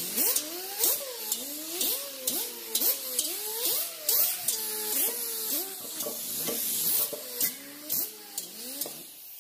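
Handheld power tool with a green abrasive disc stripping paint from a steel motorcycle fuel tank in short repeated passes, about two a second: each pass brings a whine that rises in pitch, together with a scraping hiss.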